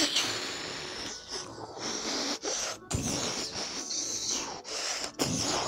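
A child making breathy, hissing sound effects with the mouth, several bursts with short breaks between.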